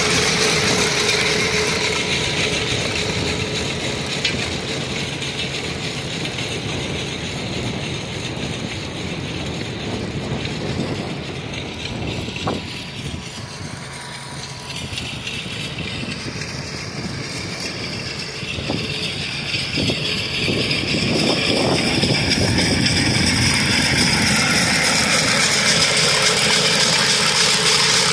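Walk-behind chain trencher running, its engine going steadily while the digging chain churns through gravel and soil. The sound drops lower through the middle, with a few knocks, then comes back up louder for the last several seconds.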